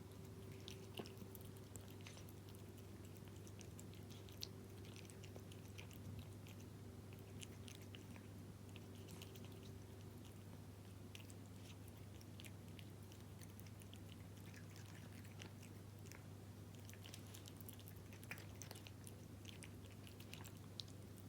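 A cat eating Felix beef-in-jelly wet cat food: faint, irregular wet chewing clicks and smacks throughout, over a steady low hum.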